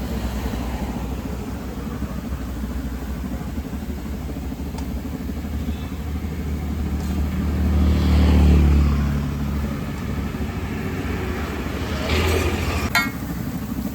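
Steady low rumble of road traffic. A motor vehicle passes about eight seconds in, swelling to the loudest point and then falling in pitch as it goes by. A sharp click comes near the end.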